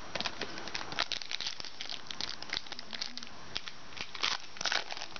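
Foil wrapper of a trading-card pack crinkling and tearing as the pack is opened: a string of irregular crackles, with louder clusters about a second in and again near the end.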